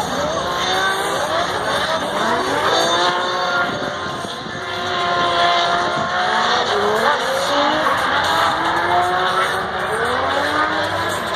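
Drift cars' engines revving hard, the pitch rising and falling again and again as the drivers work the throttle through a sliding corner, over tyre squeal.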